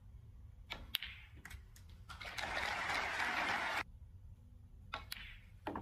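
Sharp clicks of snooker balls, cue tip on ball and then ball on ball, just under a second in, with another click near the end. Between them comes a louder rushing hiss, under two seconds long, that cuts off abruptly.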